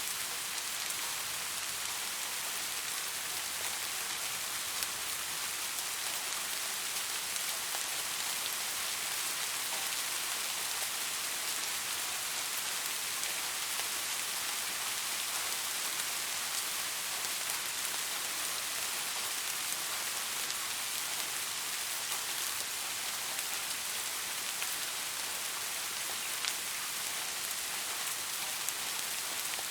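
Steady rainfall: a dense, even hiss of raindrops on a surface, with faint individual drop ticks scattered through it.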